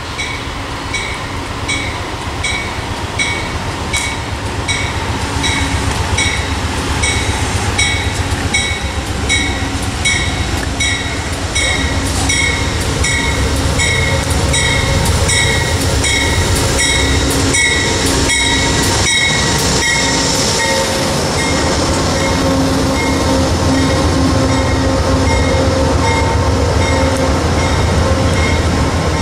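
Amtrak passenger train approaching and running past, its low rumble growing louder, while a bell rings about twice a second until about two-thirds of the way through.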